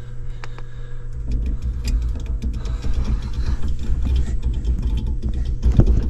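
Low, steady mechanical rumble from a heat pump air handler's ECM blower motor and wheel trying to run. The technician diagnoses the motor as bad and seizing up.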